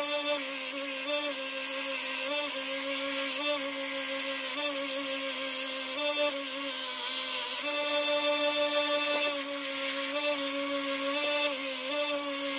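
Belt grinder running with a steady motor whine and a high grinding hiss as a small steel handguard piece is pressed against the belt. The pitch sags briefly about once a second as the piece loads the belt.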